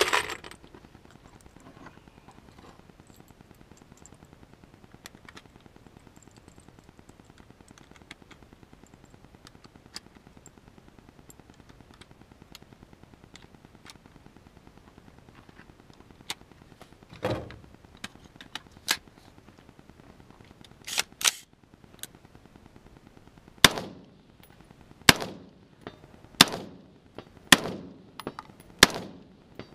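Smith & Wesson M&P15 AR-15 rifle fired as single shots. A few scattered shots come past the middle, then a steady string of about six, one every second and a half, near the end. Before that it is mostly quiet apart from a bang at the very start and small handling clicks.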